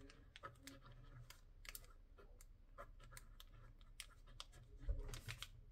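Faint scratches and ticks of a pen writing on paper, many short strokes in quick succession.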